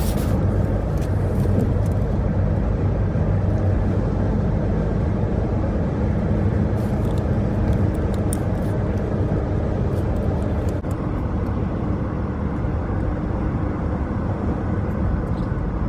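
A car driving, with steady engine and road noise and a low hum.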